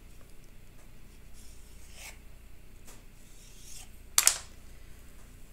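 Kitchen knife scraping as it cuts through crescent-roll dough on a plastic cutting board, with one sharp clack just after four seconds in.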